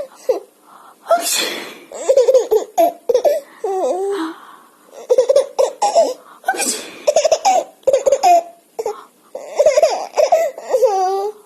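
A baby laughing in repeated bursts of giggles and belly laughs, each run set off by an adult's sneeze. Short breathy bursts come between the runs of laughter.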